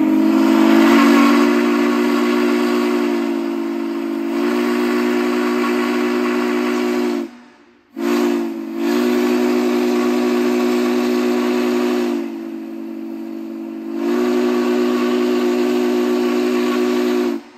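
Big Boy No. 4014's chime steam whistle blowing in long blasts, a deep chord of several notes over a hiss of steam. It holds for about seven seconds, stops briefly, sounds again, drops softer for a couple of seconds, swells back and cuts off near the end.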